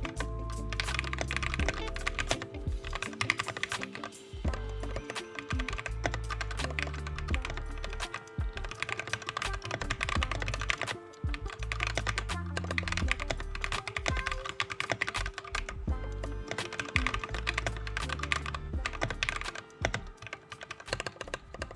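Fast continuous typing on a plateless Discipline 65 mechanical keyboard with lubed Gateron Yellow switches, a dense patter of keystrokes. Background music with a bass line plays underneath.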